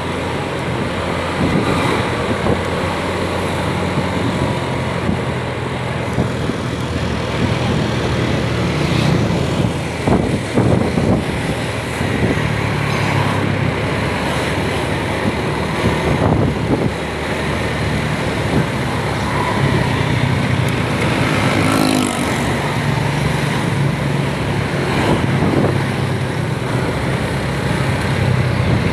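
Engine and road noise of a motor vehicle on the move, a steady hum with a few louder jolts about ten seconds in.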